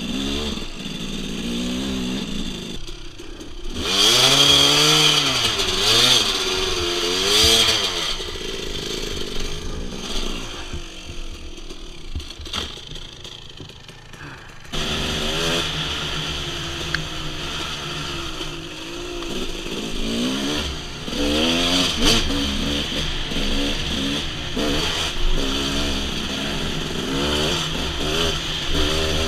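Dirt bike engine revving hard and easing off in quick swings while riding a trail. It drops low for several seconds around the middle, then comes back suddenly about halfway through and carries on revving up and down.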